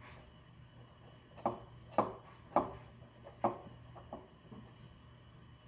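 A plastic fidget spinner knocked against a wooden tabletop: five or six light, sharp knocks, about half a second to a second apart, starting about a second and a half in.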